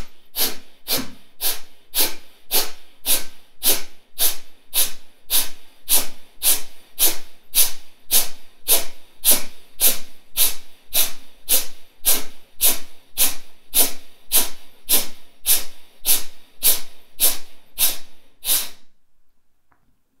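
Kapalabhati breathing: a round of about 25 sharp, forceful exhalations pumped out through the nose, each a short hiss, about three every two seconds in an even rhythm, stopping shortly before the end.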